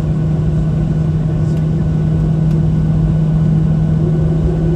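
Cabin noise of a Boeing 737 taxiing after landing: the jet engines at idle give a steady low hum over a continuous rumble.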